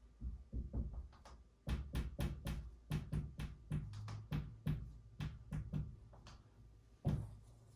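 Dry-erase marker writing on a whiteboard: a quick run of short taps and scratches as each stroke is made, with one louder knock near the end.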